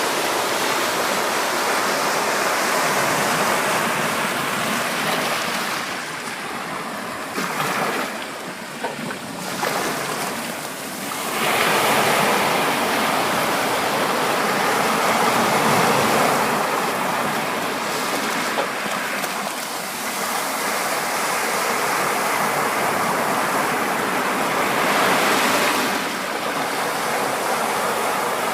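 Ocean surf washing in as a steady roar of water. It eases for a few seconds, then swells again as another wave breaks, with further gentle rises and falls.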